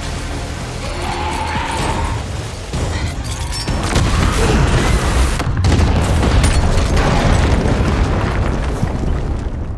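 Film sound mix of a huge fireball explosion with a deep, heavy rumble over dramatic score music. It swells about four seconds in and stays loud until near the end.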